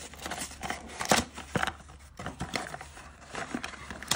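Cardboard ink-cartridge box being torn open and the cartridge pulled out by hand: irregular rustling, crackling and sharp clicks of card and plastic, the loudest about a second in.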